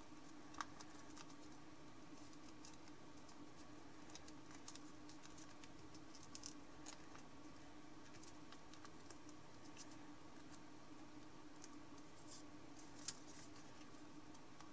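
Thin origami paper crackling and clicking faintly in the fingers as it is creased and shaped, in scattered small ticks with a sharper click about half a second in and another near the end, over a faint steady hum.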